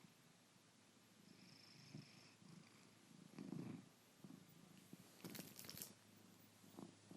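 Domestic cat snoring softly in its sleep, a low rasp with each breath about every one and a half to two seconds. A brief hissier breath comes around five seconds in.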